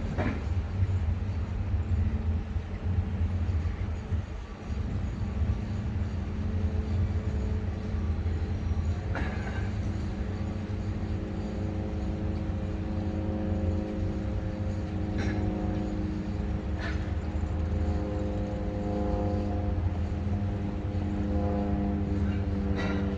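Steady low rumble of distant construction machinery, joined about halfway through by an engine-like drone of several steady tones. A few sharp knocks or clicks stand out.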